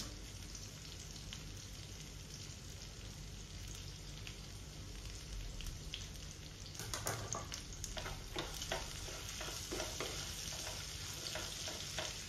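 Smoked pork slices frying in mustard oil in a nonstick pan, a steady sizzling hiss. In the second half come a run of light clicks, knocks and scrapes of utensils working the pan.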